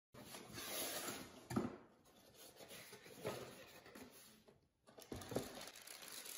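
Cardboard box and its inner packaging being handled: rustling and scraping, with soft knocks about a second and a half, three seconds and five seconds in.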